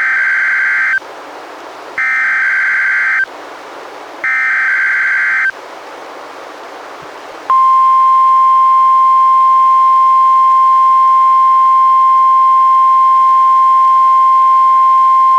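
Emergency Alert System test on NOAA Weather Radio: three one-second bursts of SAME header data tones, with radio hiss between them, then the steady 1050 Hz NWR warning alarm tone starting about seven and a half seconds in.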